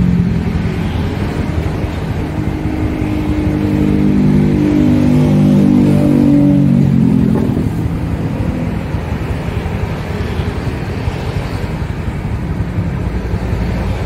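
An engine running steadily, rising in pitch from about three seconds in and dropping back after about seven seconds, as when revved or accelerating.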